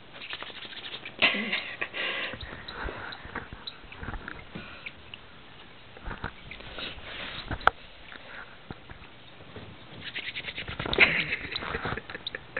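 Hands rubbed briskly together in two bouts of fast rasping, a sound the small pet bird hates, with calls and clicks from the bird in between.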